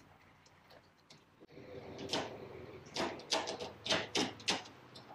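FJ40 Land Cruiser transfer case shift knob being screwed by hand down its long threaded lever: a run of short scraping clicks. They start about a second and a half in and come about three a second near the end.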